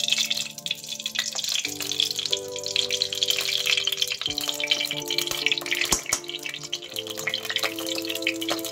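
Ghee sizzling and crackling as it melts in a hot aluminium karahi, with more ghee spooned in partway through. Soft background music with long held notes plays underneath.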